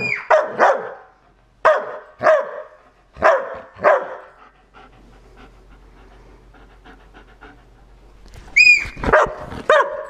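German Shepherd barking in a string of sharp barks over the first four seconds, then falling quiet. Near the end comes a short high squeal, followed by a few more barks.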